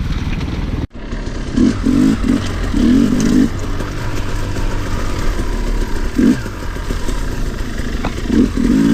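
2022 Sherco 300 SE Factory two-stroke enduro engine running as the bike is ridden, with several short throttle blips. The sound drops out for an instant about a second in.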